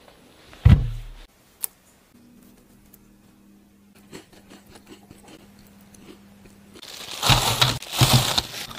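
A single heavy thump about a second in. Near the end, plastic food-handling gloves and a plastic bag rustle and crinkle loudly while pastries are packed into it.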